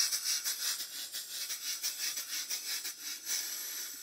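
Rebuilt horizontal steam engine running on low-pressure compressed air (about 10 or 15 psi), its exhaust puffing in a fast, even beat of hissy pulses. Near the end the beat gives way to a steadier hiss.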